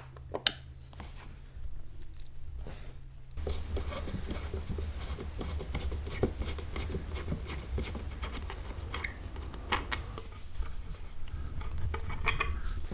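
Hand work on a wooden chair: scattered small clicks, taps and scrapes of tools and handling. From about three seconds in a steady low hum runs underneath.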